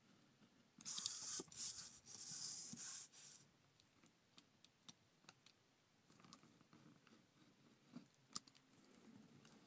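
Utility knife blade scoring through cardstock: a scratchy rasp of cutting strokes starting about a second in and lasting about two and a half seconds, then only a few faint ticks of the blade.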